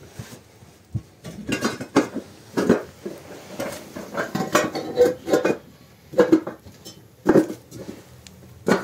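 Hollow bricks being set down and knocked against one another: an irregular string of hard clinks and clacks.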